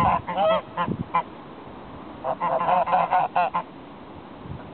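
White domestic geese honking in quick, overlapping calls that bend in pitch: one burst in the first second and another from about two to three and a half seconds in.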